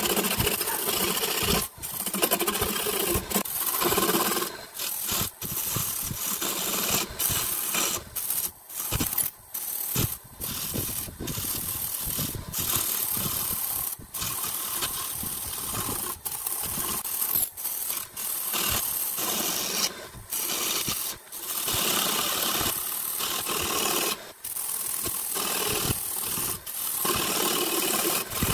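A turning tool cuts a spinning wooden blank on a wood lathe, making a scraping, hissing cutting noise. The noise breaks off briefly and resumes many times, about once a second.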